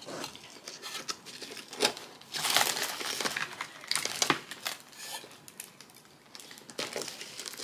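Plastic Oreo cookie wrapper crinkling and rustling as it is handled, in irregular spells that are busiest a couple of seconds in, with small clicks and taps.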